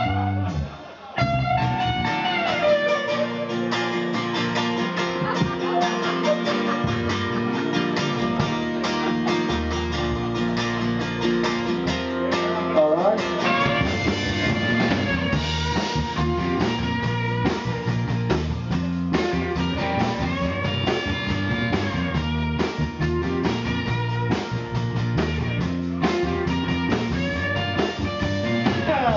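Live band playing a song with acoustic and electric guitars, bass and drums. There is a short drop about a second in, then the band plays steadily on.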